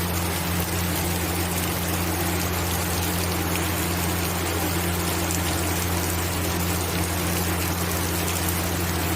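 Steady rain falling, an even, unbroken hiss of water, over a constant low hum.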